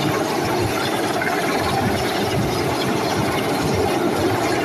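Large military helicopter hovering close by: loud, steady rotor and turbine engine noise with a fast, uneven low flutter from the blades.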